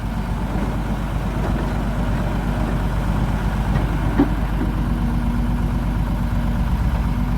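Diesel dump truck engine idling with a steady low throb, and a single short knock about four seconds in.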